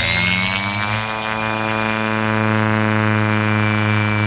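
Scale RC glider's pylon-mounted self-launch motor and propeller running at full power for a ground takeoff. The whine climbs in pitch for about the first second, then holds steady.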